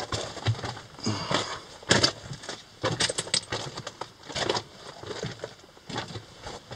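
Footsteps crunching and scuffing on loose broken rock in a narrow mine tunnel, uneven and irregular, with brief scrapes.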